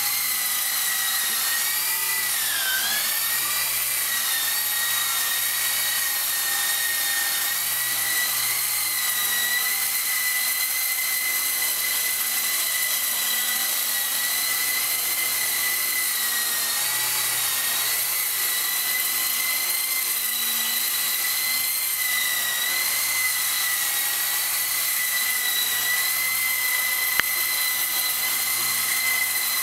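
E-flite CX3 Huey coaxial micro RC helicopter in flight: a steady high electric-motor whine over rotor hiss. The pitch dips briefly about two to three seconds in and otherwise wavers only slightly, with one sharp click near the end.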